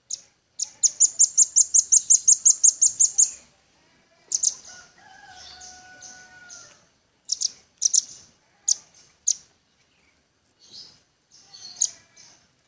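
Velvet-fronted nuthatch (red-billed nuthatch) calling: a fast run of high, sharp chips at about six a second for two and a half seconds, then single chips and quick pairs scattered through the rest. A faint steady whistle sounds for under two seconds about five seconds in.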